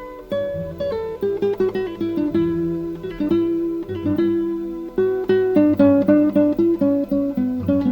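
Background music: an acoustic guitar picking a melody, note after note.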